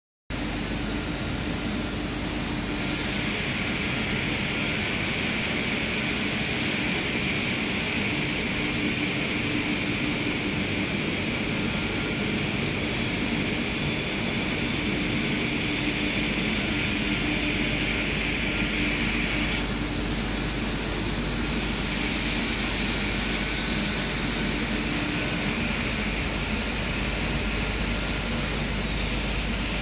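Rösler shot blasting machine running: a steady, loud rushing roar with a high hiss, the noise of its blast wheels throwing abrasive shot at steel. The hiss thins out for a couple of seconds about twenty seconds in, then returns.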